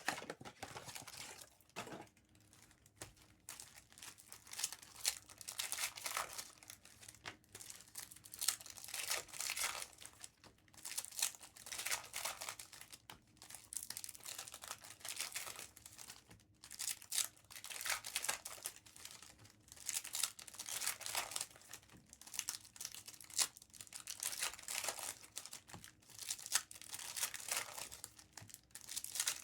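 Foil trading-card pack wrappers being torn open and crinkled in repeated, irregular bursts as packs from blaster boxes are opened.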